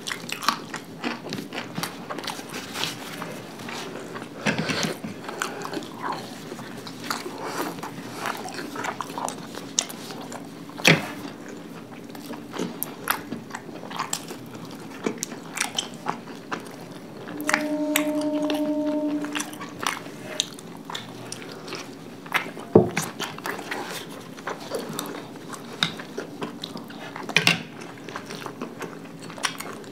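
Close-up eating sounds: soft gobi paratha flatbread being torn, bitten and chewed, with wet mouth noises and scattered small clicks. A steady hum of about two seconds comes a little past the middle.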